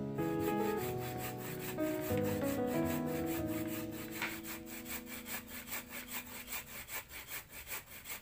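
Fresh coconut being rubbed by hand on a traditional wooden grater: a quick, even rasping of about five strokes a second. Background music plays over the first part and fades out near the end.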